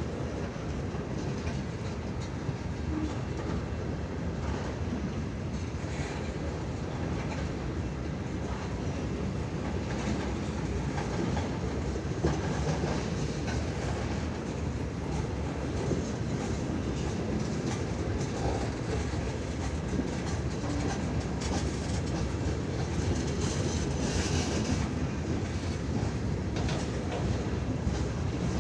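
CN freight train rolling past in a steady rumble of wheels on rail.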